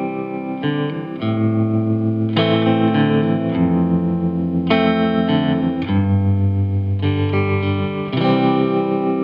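A song playing as background music: sustained chords over a bass line, changing every second or two.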